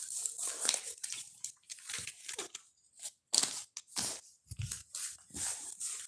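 Pet parrot chewing at something: a quick, irregular run of crunches and tearing sounds.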